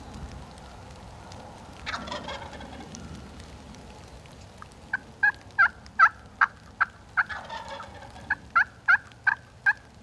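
Wild turkey gobbler gobbling about two seconds in and again a little past halfway. From about five seconds on, a long run of short, sharp turkey yelps, about three a second, louder than the gobbles.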